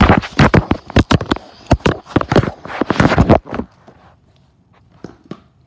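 Fast, irregular clattering knocks, loud and dense, stopping about three and a half seconds in, followed by a few faint ticks.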